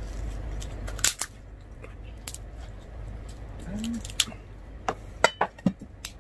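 Roast pork being torn apart by hand: a handful of sharp crackling clicks, scattered, the loudest about a second in and a cluster near the end.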